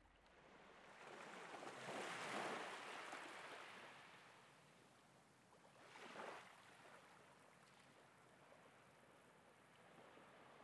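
Faint sea surf: a soft wash of waves swelling and fading over a few seconds, then a shorter wash about six seconds in.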